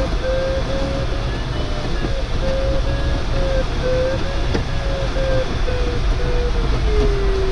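Glider variometer sounding a run of short, slightly wavering electronic beeps over a steady rush of airflow in a DG505 cockpit while circling. About seven seconds in, the beeps give way to a steady, lower continuous tone, the usual variometer sign that the climb has stopped and the glider is sinking.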